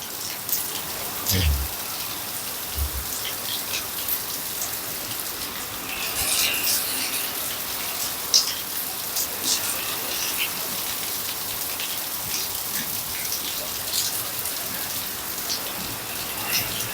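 Heavy rain falling steadily, with many individual drops ticking sharply against a hard surface. There are two brief low thumps in the first few seconds.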